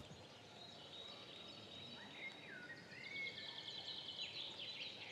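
Faint birds chirping over a low background hiss, with a couple of short falling whistles about two seconds in and a quick run of high repeated chirps after that.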